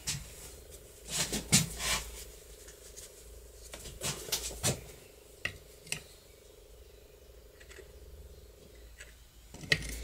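Small metal lock parts clicking and clinking against the steel case of a garage lock as a part is pressed back into place by hand. A handful of sharp clicks come in the first six seconds, then a faint steady hum, and one more click near the end.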